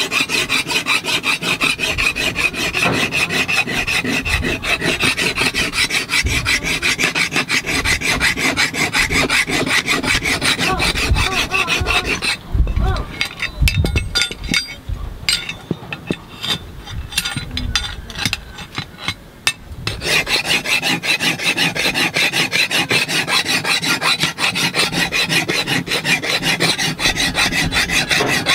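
Hand file rasped rapidly back and forth across a forged metal blade's edge in quick, even strokes. About halfway through the filing breaks off for several seconds, with a few dull knocks, then resumes as before.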